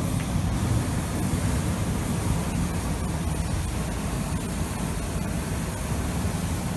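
Hot air balloon's propane burner firing overhead: a loud, steady rushing hiss with a heavy low rumble.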